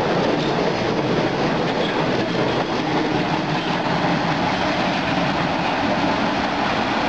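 MBTA Red Line rapid-transit train running along the track beside the platform: a loud, steady rumble and rattle of wheels on rail.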